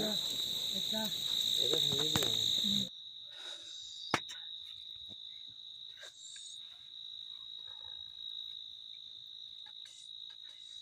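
Night crickets chirring in a steady high-pitched chorus. About three seconds in the sound drops abruptly to a quieter level, the chorus carrying on fainter, with one sharp click about four seconds in.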